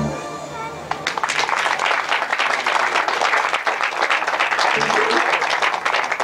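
An audience applauding: dense, even clapping starts about a second in, just after the dance music stops.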